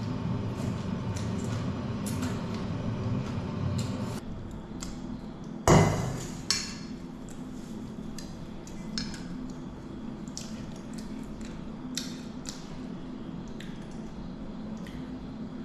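Camp cookware and utensils being handled while cooking: a steady low hum stops about four seconds in, then one loud clatter just before six seconds, then scattered light clinks and taps.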